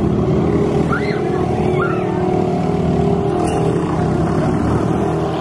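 Small outboard motor of a motorized bumper boat running steadily under way.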